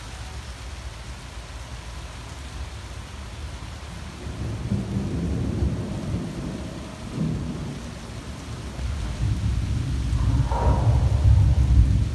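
Steady rain with thunder rumbling, the rumble swelling about four seconds in and growing louder again over the last few seconds.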